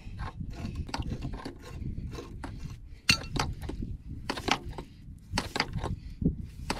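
Metal clinks and knocks from a pipe wrench and a separator's dump valve being worked loose and handled, with one sharper clank about three seconds in, over a steady low rumble.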